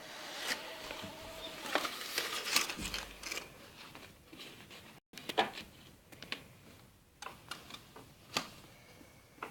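A cat's low, drawn-out yowl trailing off in the first second or so, followed by scattered sharp clicks, taps and scuffles.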